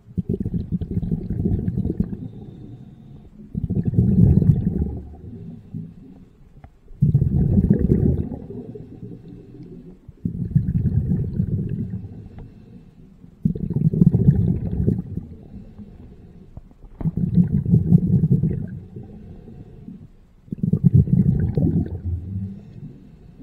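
A scuba diver's exhaled bubbles, heard underwater: a low bubbling gurgle that comes in a burst of about two seconds every three to three and a half seconds, in time with the diver's breathing.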